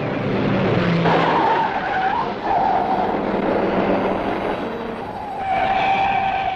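1962 Plymouth Sport Fury's tyres squealing as the car speeds through bends. There are three long squeals: one about a second in, another at about two and a half seconds, and a last one near the end, over steady road and car noise.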